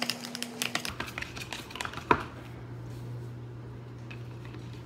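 Utensil stirring a thick glue slime mixture in a small cup, with quick clicks and scrapes against the cup, mostly in the first two seconds, and one sharper knock about two seconds in. A steady low hum runs underneath.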